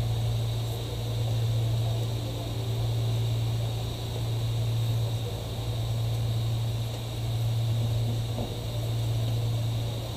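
A steady low machine hum that swells and fades every two to three seconds.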